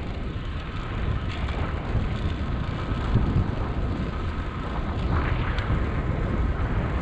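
Strong wind buffeting the microphone while riding a bicycle, a steady low rumbling rush.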